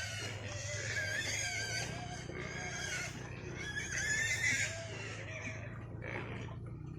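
Pigs squealing at feeding time, in high, wavering cries that peak about four seconds in and die down near the end.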